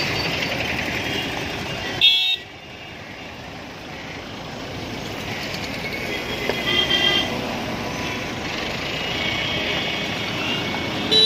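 Convoy of cars and SUVs driving past with a steady run of engine and tyre noise, and car horns tooting: one short loud toot about two seconds in, and more toots around the middle and toward the end.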